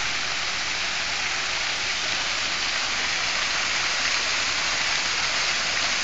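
Artificial waterfall pouring down a faux-rock cliff and splashing onto the rocks and pool below: a steady, even rush of falling water.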